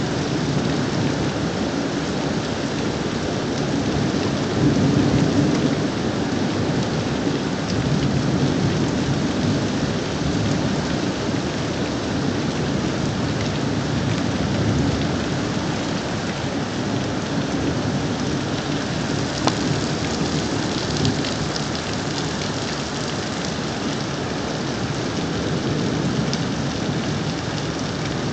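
Thunderstorm: steady, heavy rain with thunder rumbling in low swells, the strongest about five seconds in. A brief sharp click about two-thirds of the way through.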